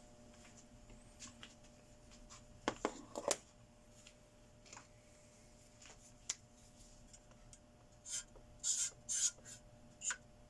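Small clicks, knocks and scraping from handling the welding machine's metal parts and tools, with a short cluster of louder knocks about three seconds in and a few quick scraping strokes near the end.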